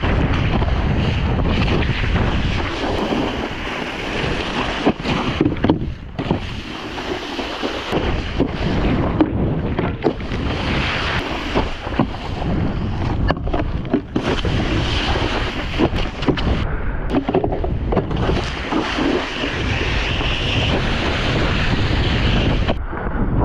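Wind buffeting an action-camera microphone over the hiss and rush of water spraying off a Liquid Force wakeboard's edge as it carves across the water. Occasional short knocks.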